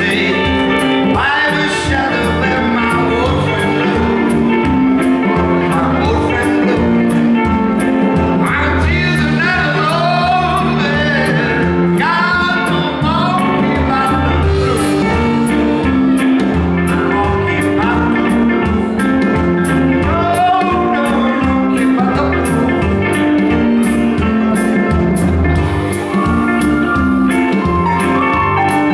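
Live blues band playing a song: electric guitar, bass guitar, keyboard and drum kit with a steady beat, and a male lead vocal.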